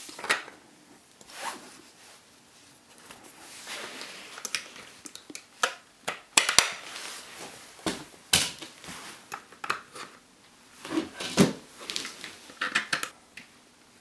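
Hard plastic GoPro mount parts handled: a J-hook buckle slid and snapped into an adhesive mount on a helmet shell. It makes a string of sharp clicks and scraping rubs, and the loudest snaps come about six and a half and eight seconds in.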